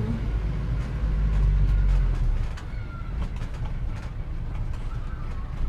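Street ambience with a steady low rumble of motor traffic and a few faint clicks.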